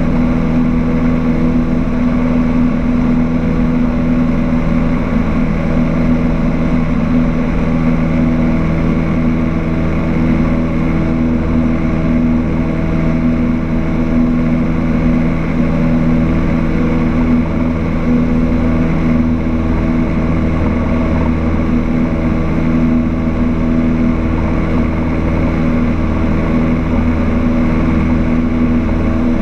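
Cessna 152's Lycoming O-235 four-cylinder engine and propeller droning steadily in cruise, heard from inside the cabin.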